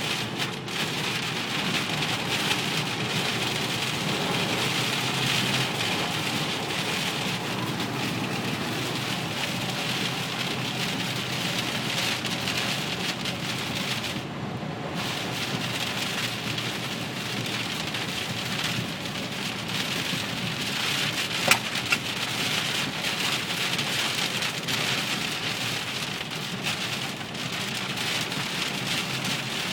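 Hard rain pelting steadily on a car, heard from inside, with one sharp click about two-thirds of the way through.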